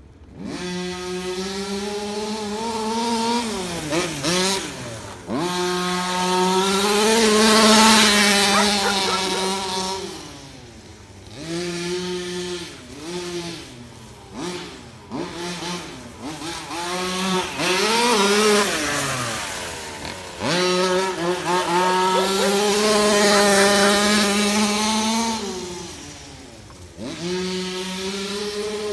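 Modified 30.5cc two-stroke gas engine of a Losi 5ive-T 1/5-scale RC truck running hard. Its pitch climbs and falls with the throttle in long runs, with a few short drops off throttle and a stretch of quick throttle blips in the middle.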